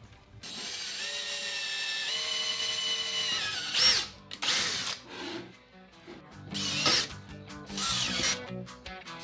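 Makita cordless drill drilling through a thick HDPE tube tread into a 3D-printed plastic wheel rim. One longer steady run in the first few seconds, then several short bursts.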